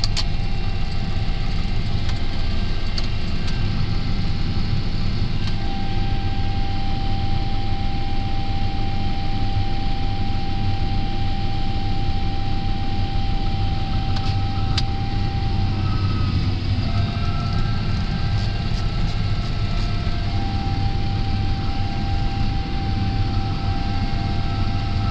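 John Deere 7930 tractor's six-cylinder diesel engine running steadily under load while pulling a manure spreader, heard inside the cab. A steady whine rides over the engine, dropping a little in pitch for a few seconds past the middle.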